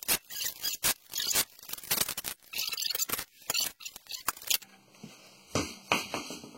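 Torque wrench ratcheting and clicking on the wheel's lug nuts: a quick irregular run of sharp clicks and scraping strokes, thinning out about four and a half seconds in.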